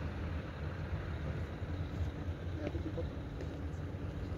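Low, steady rumble of heavy vehicles, with wind on the microphone and faint voices in the background.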